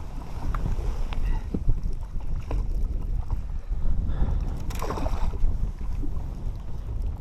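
Wind buffeting the microphone as a steady low rumble, with scattered small knocks and clicks and a brief rushing noise about five seconds in.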